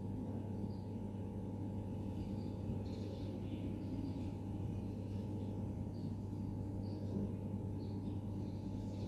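A steady low drone of several held tones, unchanging throughout, with faint short high chirps coming and going above it.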